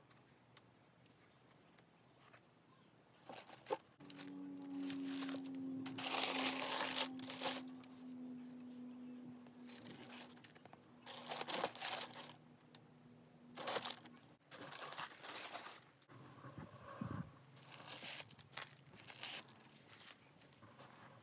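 Tissue paper rustling and crinkling in repeated bouts as slide sandals are lifted out of their paper-lined shoebox, loudest about six seconds in. A steady low hum sounds underneath for about ten seconds in the middle.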